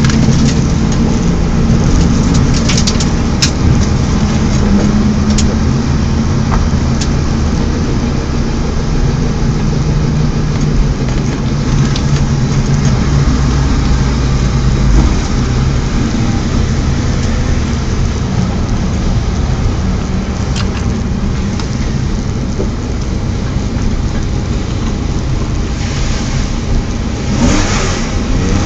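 BMW 318is four-cylinder engine running hard, its note shifting up and down in pitch, with the revs rising again near the end.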